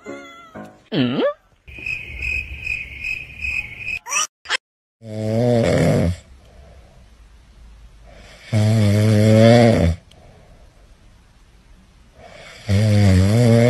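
Grey cat snoring loudly in its sleep, three long snores about three and a half seconds apart.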